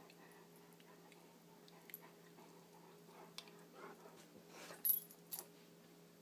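Greater Swiss Mountain Dog play-fighting with a cat: faint dog vocal sounds with scuffling and mouthing, and two sharp clicks about five seconds in.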